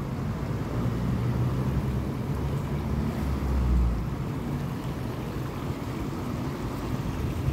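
Wind blowing across a phone microphone: a low, uneven rumble that swells loudest about three to four seconds in.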